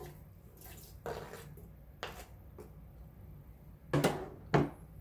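Faint scraping and light taps as chopped ginger is tipped off a plastic cutting board into a glass drink dispenser of water, then two sharp knocks about half a second apart near the end as the board and knife are set down.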